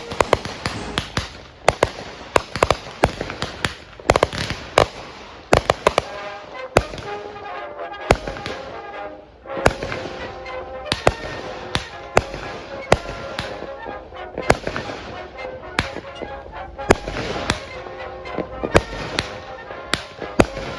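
Consumer aerial fireworks going off in a rapid, irregular barrage of sharp bangs, several a second, with a brief lull about eight seconds in before the bangs resume.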